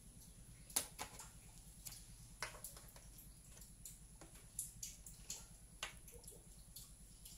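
Plastic chess pieces clicking as they are picked up and set down on a chess board, several light, sharp taps, the loudest one about three quarters of a second in.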